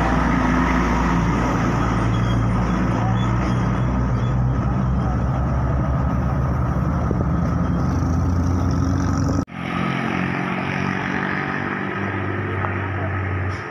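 Road traffic passing close by: a loaded dump truck's diesel engine running slowly with a low, steady hum among passing cars and motorcycles. The sound cuts off abruptly about nine and a half seconds in and picks up on another stretch of traffic, with a truck engine droning as it approaches.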